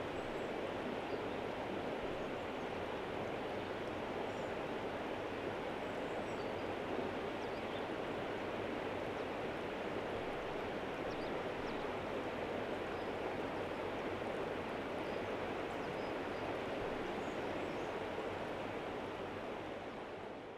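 Steady rushing of flowing river water, fading out near the end.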